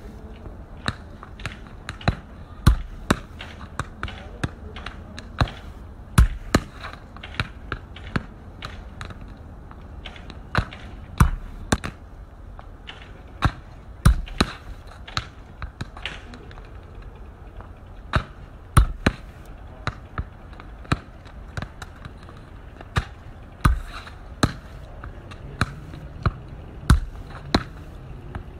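Football being kicked and juggled on paving: sharp, irregular thuds of the ball striking the foot and the ground, about one or two a second.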